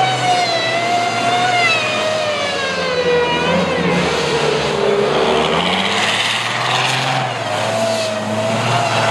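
Supercharged, turbocharged diesel race truck engine held at high revs while the truck spins donuts, its pitch sagging and climbing again as the throttle varies, with the hiss of spinning tyres.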